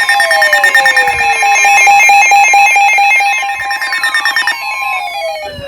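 Emergency Alert System tones for a severe thunderstorm warning, from several alert receivers at once: a steady two-tone alert signal with rapid chirping bursts over it, and repeated falling whistle-like sweeps. Most of the tones cut off about four and a half seconds in and the sound fades.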